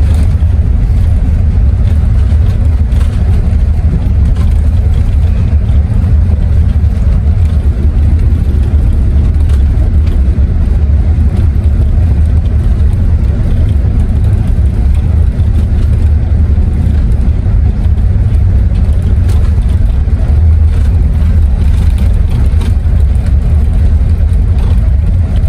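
Intercity coach's engine and road rumble heard from inside the cabin while it drives through town: a steady, loud low drone with no breaks.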